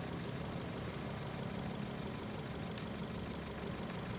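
Ford Fiesta's engine idling steadily, a low even hum.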